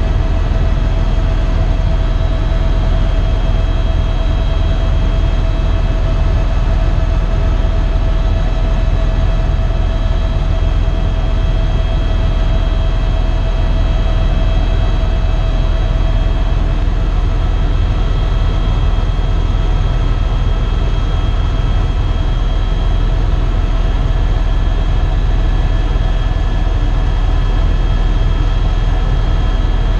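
Eurocopter EC130 EcoStar helicopter's single turboshaft engine and rotors running steadily, a loud unbroken drone with a low rumble and a steady high whine.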